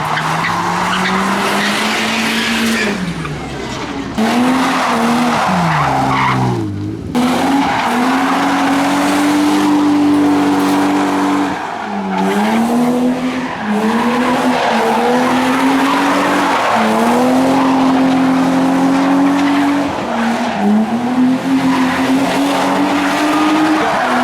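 Car engine revving hard under load in long held pulls, its pitch dropping sharply several times before climbing again, with tyres squealing as the car skids under power.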